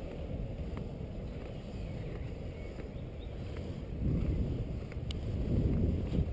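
Low, steady rumble of inline skate wheels rolling on an asphalt path, mixed with wind on the microphone; it grows louder about four seconds in and again near the end.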